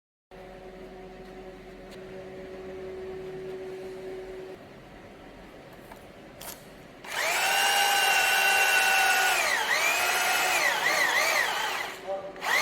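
Electric drill spinning a threaded anchor rod into a resin capsule in a drilled hole, setting the bolt. The motor whines loudly and steadily, then its pitch dips and wavers as it loads up, and it stops with a short second burst near the end.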